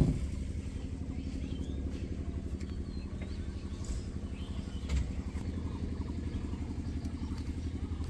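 JCB 3DX Super backhoe loader's diesel engine idling steadily. A sharp clank comes right at the start, and a lighter knock about five seconds in.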